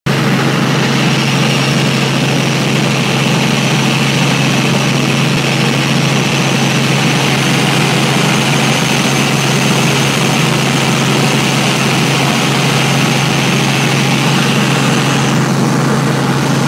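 Small helicopter in flight, heard from inside the cabin: a loud, steady drone of engine and rotors over a constant low hum.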